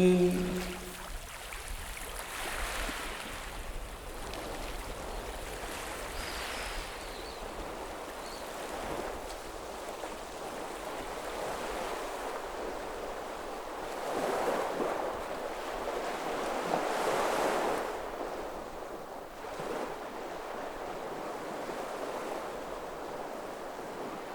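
Sea surf washing onto a shore in slow, recurring swells, with two louder waves breaking a little past halfway.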